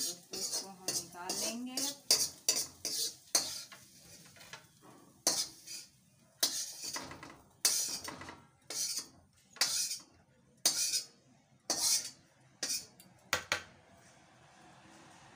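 A metal spoon scraping and knocking in a kadhai (wok), scooping cooked bhujiya out onto a plate. The strokes come one at a time, roughly one a second, and stop near the end.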